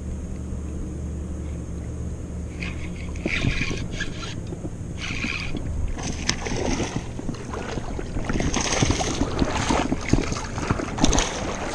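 Wind rumbling on the microphone, with scattered clicks and scrapes from handling a spinning rod and reel; the scraping and clattering grows busier in the second half.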